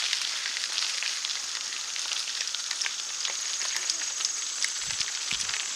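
Bicycle tyres rolling over a gravel trail strewn with dry leaves: a steady crackling hiss full of small clicks and crunches.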